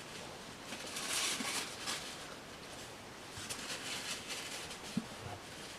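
Paper towel wiping excess silicone off a headlight lens: faint rubbing in two spells, with a light tap near the end.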